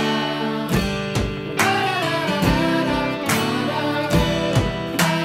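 Background music with strummed chords.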